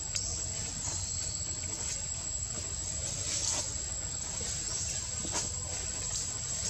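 Insects droning in a steady, high-pitched whine, with a few faint scattered clicks.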